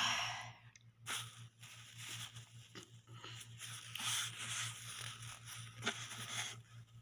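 Tissue paper crinkling and rustling as it is crumpled and handled in the hands, in irregular crackles with a couple of sharper snaps. A steady low hum runs underneath.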